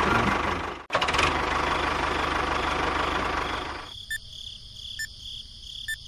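Tractor engine sound running, cut off abruptly about a second in, followed by a steady noise. From about four seconds in, a countdown timer beeps once a second over a steady high tone.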